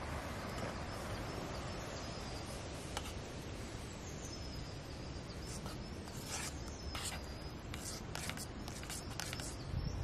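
Steady forest background with small birds chirping. From about halfway there is a quick run of short, sharp high clicks and chirps.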